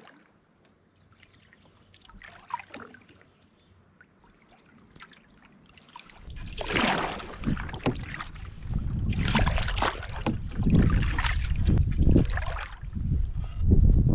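Water splashing from strokes that drive an open canoe through shallow water: a few faint splashes at first, then louder splashing strokes. From about six seconds in, wind buffets the microphone with a low rumble.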